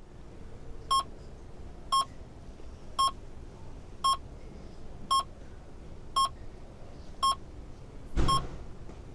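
Operating-theatre patient monitor beeping steadily, one short high beep about every second, nine in all. A brief dull whoosh comes near the end.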